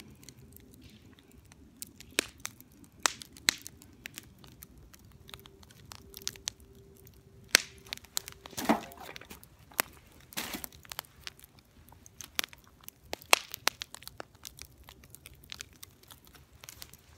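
Log fire burning in a fire pit, crackling with irregular sharp pops and snaps, a few much louder than the rest.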